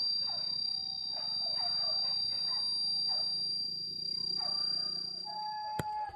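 Hunting dogs barking and baying in the distance, short calls repeating about once or twice a second, over a steady high insect drone. A sharp click comes near the end.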